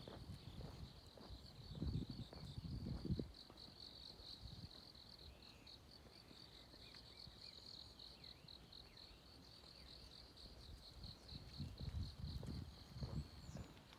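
Insects chirping in a steady, fast-pulsing high trill, with a few low thumps about two seconds in and again near the end.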